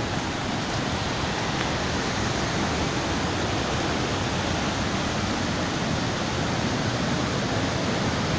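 Small waterfall running steadily, a weak fall of water whose rush gives an even, unbroken noise.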